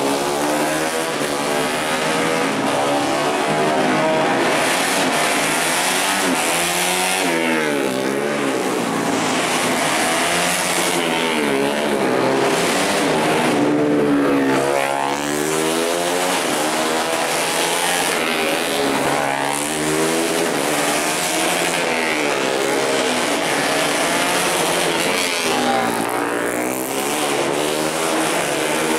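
Four-stroke 150 cc underbone racing motorcycles running hard around the circuit and passing one after another, their engine pitch repeatedly climbing and dropping as they accelerate and slow for the corners. Often several engines are heard at once, overlapping.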